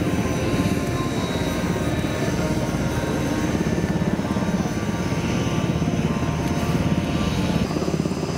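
C-130 Hercules' four turboprop engines running steadily at close range, with a fast, even pulsing from the propellers.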